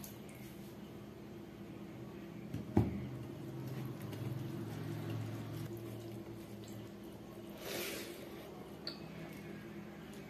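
Chicken curry being poured from a glass bowl onto a plate of rice. The glass bowl is set down on the wooden table with a single sharp knock about three seconds in, followed by the soft squish of fingers mixing rice and curry. A steady low hum runs underneath.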